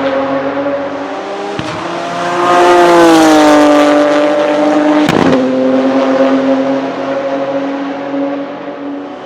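Porsche 997 GT2 RSR's 3.9-litre twin-turbo flat-six engine running hard, its pitch rising and easing gently. Sharp cracks come about one and a half seconds and five seconds in, as the sequential gearbox changes gear.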